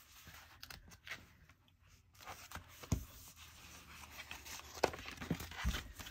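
Paper rustling as the pages of a sticker book are handled and turned, with a few light ticks and taps; the rustling picks up about two seconds in.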